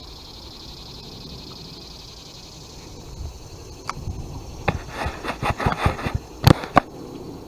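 Irregular clicks and knocks that start about three seconds in and come thicker after about five seconds, ending in two sharp knocks close together.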